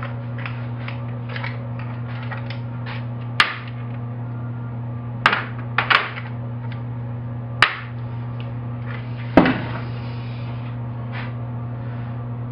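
Metal hand tools and parts clanking as they are handled and set down on an aluminium tray: about half a dozen sharp clanks a second or two apart, with lighter ticks between, over a steady low hum.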